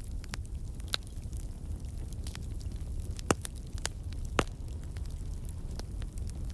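Campfire burning: wood crackling and popping at irregular moments over a low steady rumble, with two louder pops in the middle.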